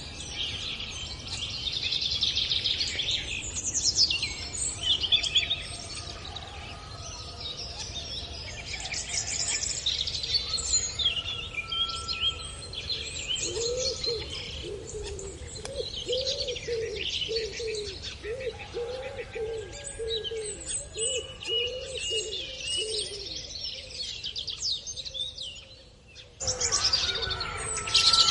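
Wild birds chirping and singing, many quick high calls overlapping, over a steady low background hiss. From about halfway, a lower repeated note sounds about twice a second for some ten seconds. Near the end the sound dips, then cuts abruptly into another stretch of birdsong.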